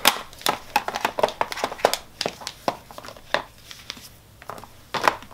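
Makeup palette cases being handled by hand and set down on a clear plastic zippered makeup bag: a run of irregular light clicks and taps.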